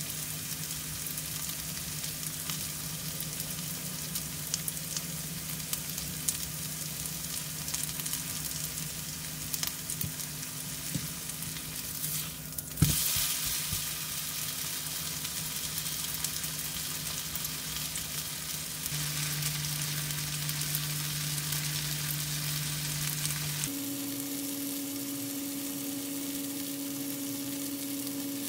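Shredded potato pancake sizzling steadily in hot oil in a nonstick frying pan, with a single sharp knock about halfway through. Under the sizzle runs a low steady hum that changes pitch twice in the second half.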